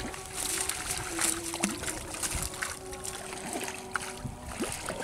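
Water trickling and splashing in irregular bursts as a cast net is hauled and lifted out of shallow pond water by men wading in it.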